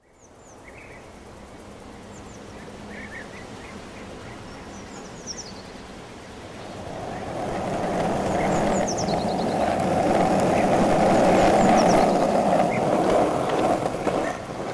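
Skateboard wheels rolling on pavement, a steady rumble that grows louder from about halfway through as the boards approach, with small birds chirping now and then.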